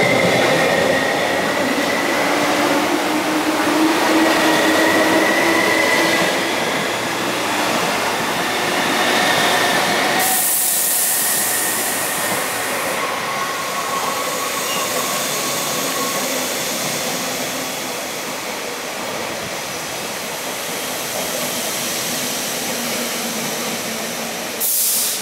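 An MTR East Rail line Metro-Cammell electric train (MLR) is pulling out and running past. The wheels rumble steadily on the rails with held whining tones, and the sound slowly fades as the train leaves. About ten seconds in a loud hiss lasts some three seconds, and a short hiss comes again near the end.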